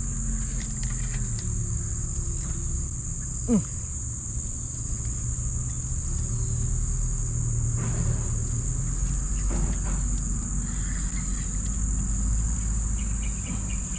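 Steady high-pitched drone of a tropical insect chorus, with a low steady rumble underneath and a short falling sound about three and a half seconds in.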